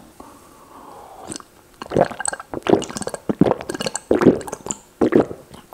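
Close-miked slurping and gulping as liquid is drunk from a bowl: a string of short, irregular wet sips and swallows that starts about two seconds in and lasts about three seconds.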